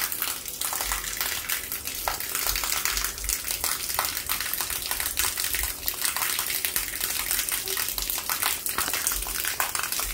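Water pumped out by a Sea-Doo Spark's bilge pump, jetting from the deck outlet and splashing down in a steady gush and patter: the newly installed pump running and clearing the hull.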